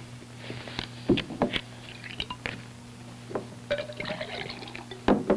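Liquid poured from a bottle into a glass, with several sharp knocks of glass or bottle set down on the desk, the loudest just before the end.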